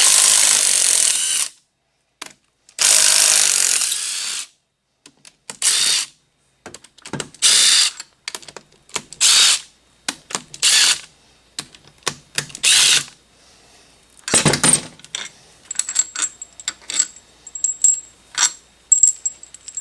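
A power tool runs in repeated bursts, the first two longest and the rest short, as bolts are run out of a Polaris Ranger 900 XP engine during teardown. Small metallic clinks follow near the end.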